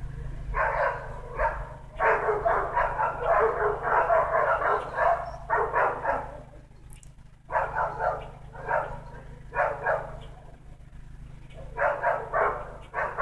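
Dog barking in quick runs of several barks a second, broken by short pauses between runs.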